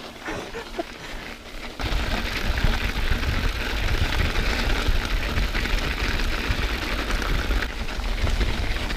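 Bicycle rolling fast over a packed-snow trail: a steady rumble and hiss of wind and tyre vibration on the bike-mounted camera, coming up suddenly about two seconds in and running on evenly.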